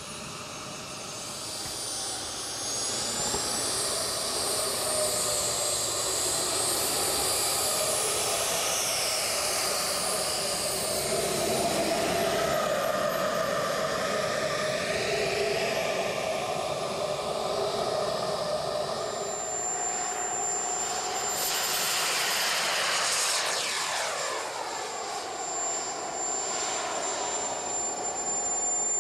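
JetCat P-160SX model turbine engine of an RC Eurofighter running, a high whine over a jet rush. The whine climbs a few seconds in as the turbine spools up, wavers with the throttle, and drops steeply in pitch about 23 seconds in as the jet goes by.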